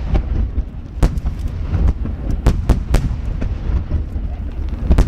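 Barrage of large 30 cm (shakudama) aerial firework shells bursting in quick succession: sharp booms about twice a second at uneven spacing, over a continuous low rumble of overlapping bursts and echoes.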